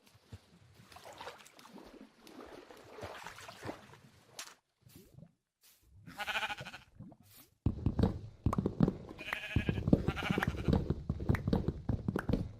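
Two short, wavering bleat-like animal calls, the first about six seconds in and the second about nine and a half seconds in. Alongside them, a rapid run of knocking and clattering starts about eight seconds in.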